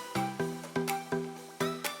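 Background music: an upbeat track of plucked, pitched notes about two to three a second, each fading before the next.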